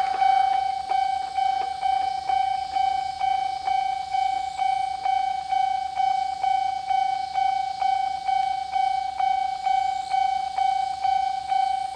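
Japanese railway level-crossing warning bell from an electronic sound box, ringing in a steady repeating ding at about two and a half strikes a second. It stays at its normal rate because only one direction arrow is lit on this single-track line; a faster ring is used when arrows for both directions light.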